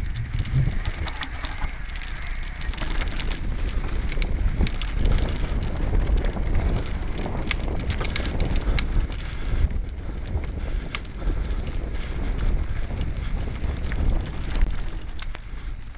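Mountain bike rattling and clicking over a rough grass trail, with steady wind rumble on the microphone.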